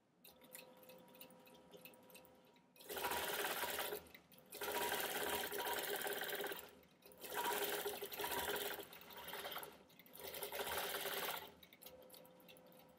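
Computerized longarm quilting machine stitching a circle. A faint steady hum gives way to about five runs of fast stitching with brief breaks between them, then drops back to the faint hum near the end.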